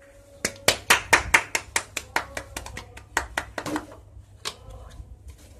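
Fingers tapping and clicking on the phone box's yellow cardboard accessory tray: a quick run of sharp taps, about six a second for some three seconds, then two or three more.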